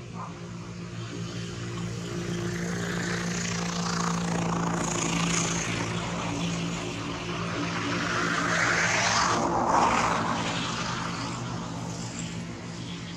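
A distant engine droning steadily with a low hum, swelling louder in the middle and again, loudest, about ten seconds in before easing off.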